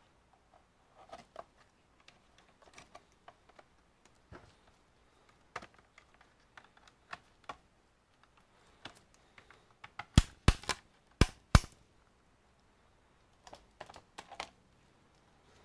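A laptop being handled and turned over on a workbench mat: scattered light taps and clicks of the casing, with four sharp, loud clicks close together a little past halfway.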